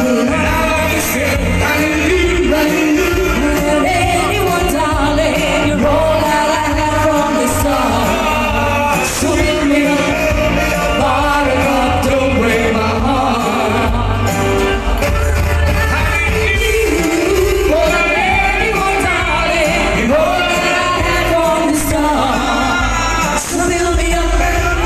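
A live band playing a song with a singer, with a steady strong bass under the vocal line.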